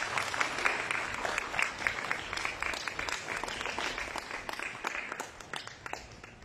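Audience applauding, the clapping thinning out and fading away near the end.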